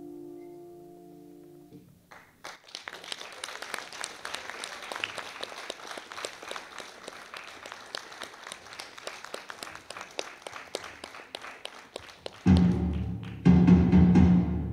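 A held piano chord dies away, then an audience applauds for about ten seconds. About twelve seconds in, loud deep drumming breaks in over the clapping.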